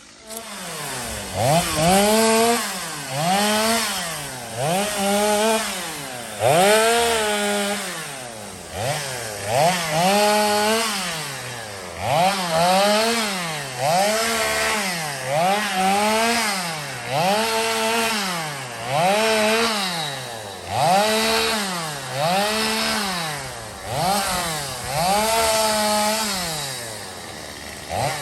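Gas chainsaw cutting wood, its engine revved up and let back down over and over, about once every second and a half.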